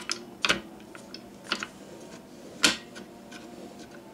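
Four scattered sharp clacks and knocks as a wooden test chassis is handled on a wooden workbench: the MDF tie board and the two wheeled bogies it joins shifting and swivelling. The loudest knock comes a little under three seconds in.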